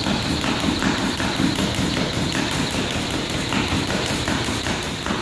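Speed jump rope ticking against a wooden gym floor in a fast, even rhythm, with light footfalls as the jumper alternates feet.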